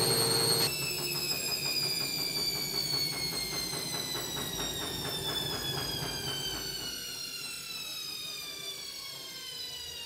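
Synix 7 kg front-loading washing machine coming off a spin. About a second in, the motor's steady whine cuts out. A slowly falling whine follows as the drum coasts down, with faint rhythmic pulsing, and the sound gradually fades.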